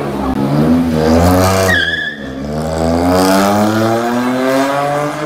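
Volkswagen Polo GT engine and exhaust under hard acceleration: the note climbs in pitch, breaks off briefly about two seconds in, then climbs steadily again.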